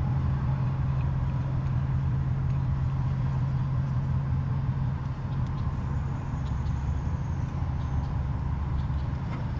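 A truck engine idling with a steady low hum, with a few faint clicks and taps as a glad hand coupling is screwed onto an air line.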